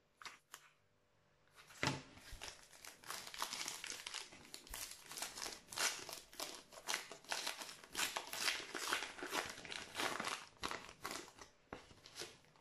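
Plastic wrapper of a Match Attax trading-card pack crinkling and crackling as it is torn open by hand. The crackling starts about two seconds in, after a couple of faint ticks, and dies away near the end.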